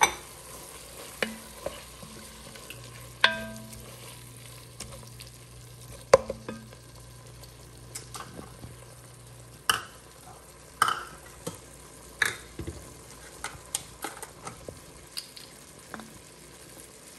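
A wooden spoon stirring browned sausage and tomato paste in an enamelled cast-iron Dutch oven, scraping and knocking irregularly against the pot, while the meat sizzles.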